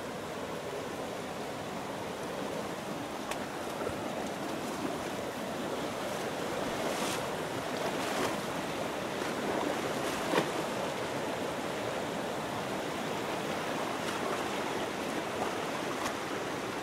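A shallow stream rushing over rocks and debris, with a steady rush of water, and a single sharp knock about ten seconds in.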